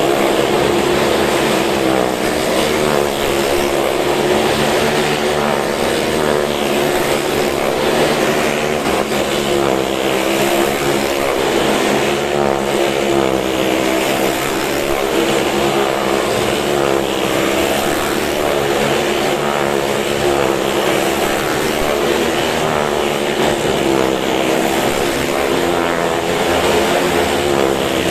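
Engines of two stunt vehicles racing round the vertical wooden wall of a Well of Death drum, running hard without a break. The pitch wavers up and down over and over as they lap the drum.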